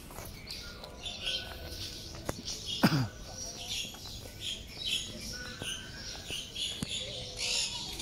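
Many birds chirping and calling, short high chirps overlapping one another. About three seconds in, one brief loud cry falls steeply in pitch.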